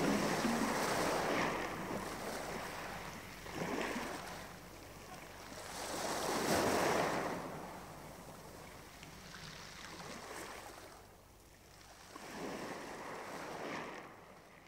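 Sea waves washing in and drawing back: about five swells of rushing surf, the largest in the middle, fading away near the end.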